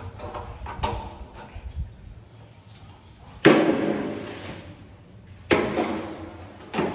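Some light knocking, then three sharp knocks or clanks about two seconds apart, each ringing briefly as it fades.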